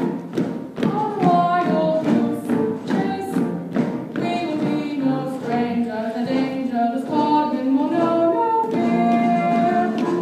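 Musical theatre number: orchestral accompaniment with voices singing, over regular percussive thumps.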